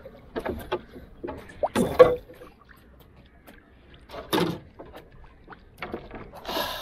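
Water slapping and splashing around a small wooden canoe, with scattered knocks on the hull and a few louder splashes about two seconds in, after four seconds, and near the end.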